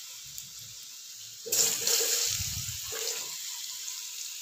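Potato pieces sizzling in hot oil in a kadai. About a second and a half in, a louder burst of sizzling as more pieces go into the oil, easing back to a steady frying hiss.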